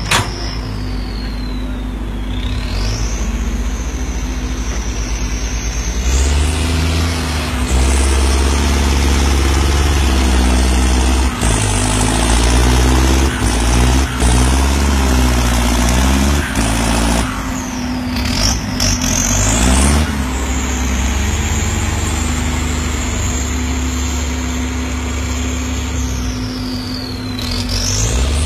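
Turbocharged diesel engine of an earthmoving tractor working under heavy load, with a high turbo whistle gliding down and up several times as the throttle changes. The engine note gets louder and heavier about six seconds in.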